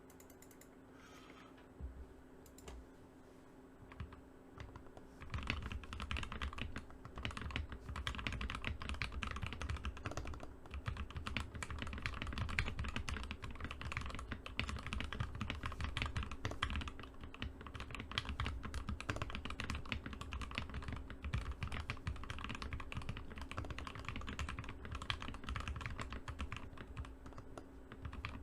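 Typing on a Tofu60 mechanical keyboard with lubed Gateron Yellow linear switches on a brass plate. A few scattered keystrokes at first, then about five seconds in, fast continuous typing.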